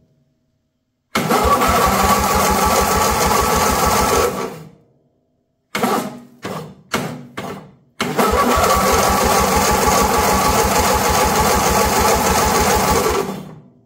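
Briggs & Stratton twin-cylinder lawn tractor engine cranked over by its starter in two bursts, the second longer, with a few short knocks between them. It turns over evenly but does not fire: the fuel filter stays dry, so no fuel is reaching the carburetor.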